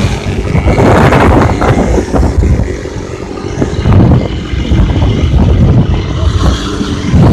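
Quad bike engines running as they drive over sand, mixed with heavy wind buffeting on the microphone.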